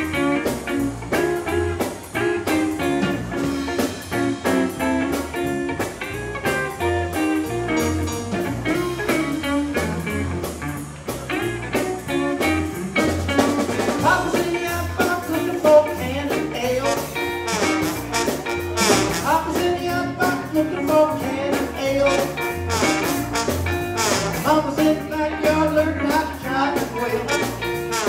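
Live old-style R&B and blues band playing, with trombone over electric guitar, bass guitar and drum kit.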